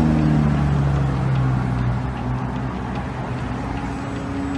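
Car engine and road noise from the vehicle moving past, the engine's pitch falling slowly over the first couple of seconds as it slows, then holding steady.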